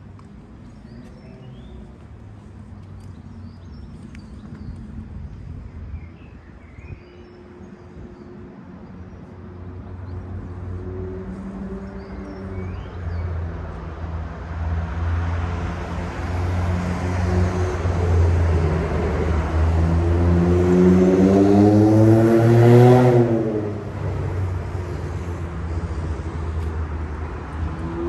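A motor vehicle on the road approaches and passes close by. Its sound builds over several seconds and its engine note drops in pitch as it goes past, about 23 seconds in. Faint short bird chirps come in the first half.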